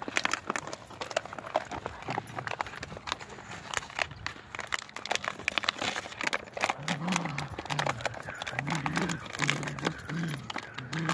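Two dogs tugging at a crumpled plastic bottle: the plastic crackles and crinkles in their jaws, and from a little past halfway one of them growls in a run of short low growls.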